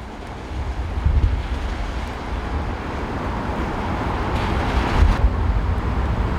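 Wind buffeting the microphone outdoors: a gusty low rumble that swells about a second in and again near the end, over a steady hiss.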